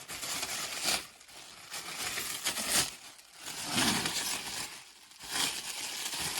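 Tightly bound packaging being crinkled and torn open, in a series of rustling bursts roughly a second apart.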